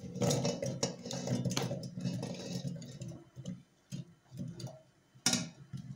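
Raw potato quarters sliding off a plate and dropping into an enamel pot: an uneven run of knocks as the pieces hit the pot and each other, with one louder knock near the end.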